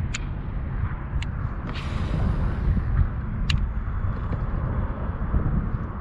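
Wind rumbling on the microphone, with a few sharp clicks and a short whoosh about two seconds in.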